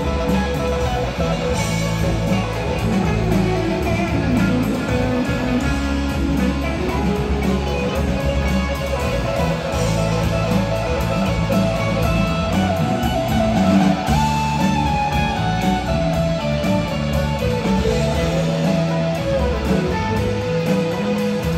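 Live rock band music: an electric guitar plays a lead line of held, bending notes over bass guitar and drums, with a long slide up about two-thirds of the way through.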